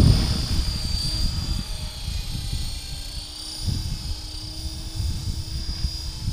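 Align T-Rex 450 XL electric radio-controlled helicopter in flight: a steady high-pitched whine from its motor and rotor, joined by a lower steady hum about two seconds in. Gusty wind buffets the microphone underneath.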